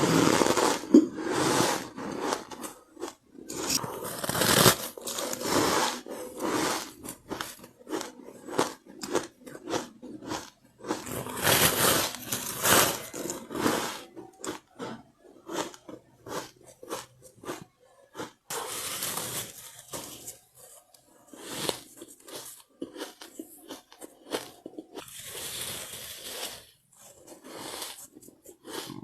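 Soft powdery ice being bitten and chewed, a dense run of crunching and crackling that comes in loud spells of bites with quieter chewing between.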